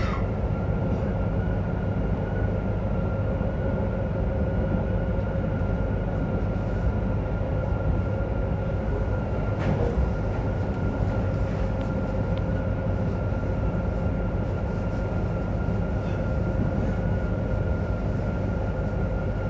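JR Hokkaido 731 series EMU car MoHa 731-109 running at a steady speed, heard inside the car: an even rolling rumble with a steady motor tone. The traction motor on its Otaru-end bogie gives off an abnormal roar like an old nose-suspended (tsurikake) motor.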